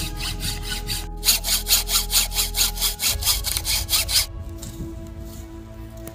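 A hand frame saw cutting through a bamboo pole in quick back-and-forth strokes, about four a second, that stop suddenly about four seconds in.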